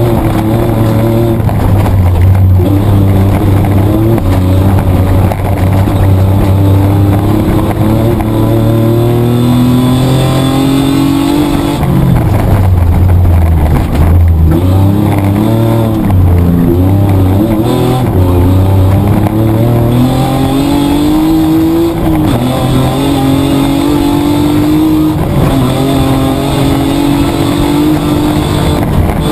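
Petrol engine of a production 4WD Mitsubishi Triton racing off-road, heard loud from inside the cabin. Its note climbs in pitch and drops back sharply several times, as the driver works through the gears and throttle.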